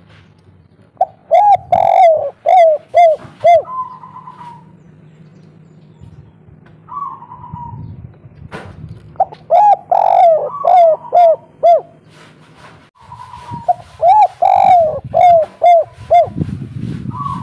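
Spotted dove (tekukur) of the 'kuk 3' song type cooing: three bouts of short, quick, repeated coo notes, with a few longer single notes in between.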